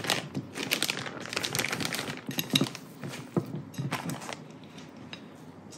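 Pieces of cut cinnamon roll dough being tipped from a plate into a plastic zip-top bag of cinnamon sugar: a run of quick light taps, clicks and plastic rustling that dies down after about four seconds.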